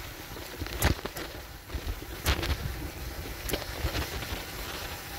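Bicycle rolling along a bumpy dirt forest track, with wind buffeting the microphone and a low tyre rumble. A few sharp clicks stand out, the loudest about a second in and just after two seconds.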